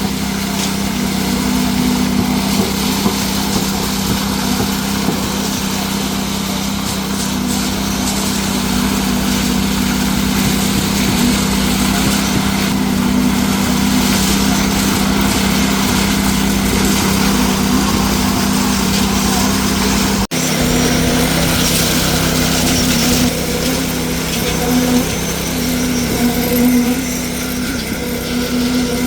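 Concrete-pouring machinery running at a steady pace: a constant engine hum with a rough, noisy layer on top. The sound cuts out for an instant about two-thirds of the way through.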